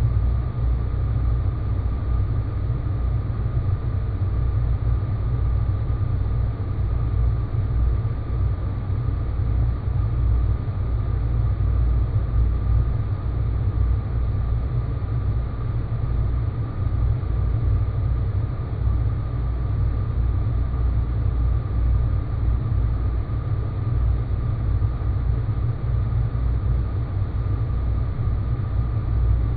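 Sci-fi space-planet ambience: a steady low rumbling drone with a faint, thin, steady tone above it, unchanging throughout.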